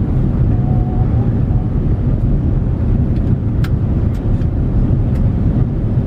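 Steady low rumble of an Airbus A330-900neo's cabin on final approach, engine and airflow noise, with a few faint ticks about halfway through.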